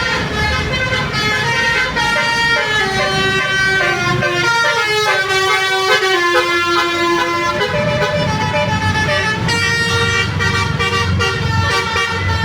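Indonesian telolet bus horns playing quick stepped melodies, several horns overlapping, over the low running of bus engines.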